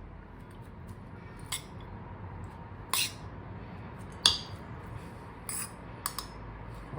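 About five light, separate clinks of a kitchen utensil against a bowl while chopped red onion is added to the mix.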